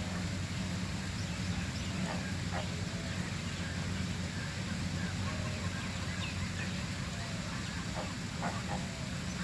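Birds giving short, scattered calls over a steady low hum.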